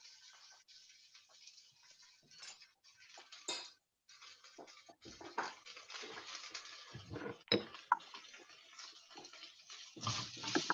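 Faint kitchen noise of cooking in pans: a steady hiss with scattered clicks and knocks of utensils against pans, a few louder knocks a little after halfway.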